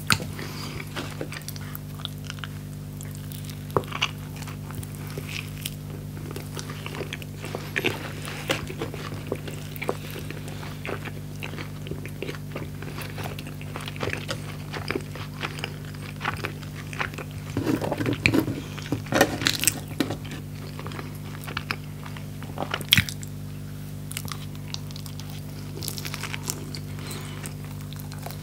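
Close-miked eating sounds: biting and chewing a pita wrap of fried chicken and French fries, with wet mouth clicks and small crunches, busiest about two-thirds of the way in. A steady low hum runs underneath.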